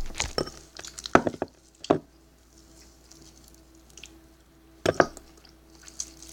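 Sticky homemade slime being handled, giving short wet squelches: a quick run of them in the first two seconds and a pair about five seconds in.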